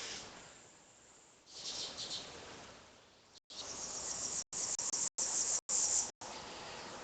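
High, shrill insect chirring, crickets or similar, that swells and fades a few times. In the second half the sound drops out completely several times for a moment, as the stream breaks up.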